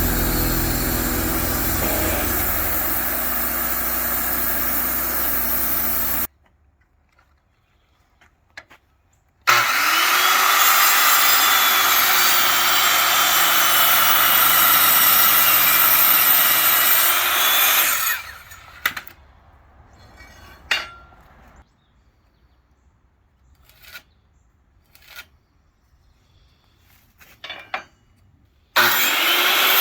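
Power saw cutting through wood in long loud runs, each starting and stopping abruptly, with the motor spinning up and winding down. In the quieter stretches between cuts there are a few scattered knocks of wood being handled.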